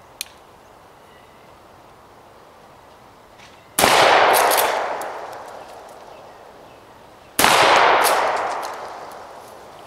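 Two 12-gauge shotgun shots about three and a half seconds apart, each ringing out and fading over about two seconds. The shells are game loads refilled with split-shot fishing lead as improvised buckshot.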